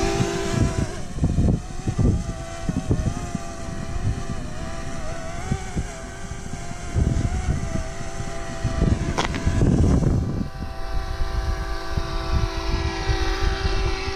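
Quadcopter drone hovering, its propellers giving a steady whine of several pitches that wavers slightly, over a gusty rumble of wind on the microphone. A single sharp click about nine seconds in.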